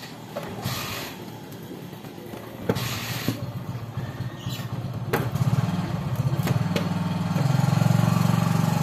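Scooter's plastic inner front panel being worked loose and pulled off, with several sharp clicks and knocks as it comes free. Behind it a small engine hums steadily from about a third of the way in, growing louder near the end.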